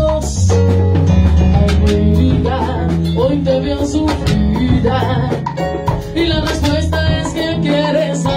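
Cuban salsa band playing live: a moving bass line under a drum kit and percussion hits, with a woman singing into a microphone.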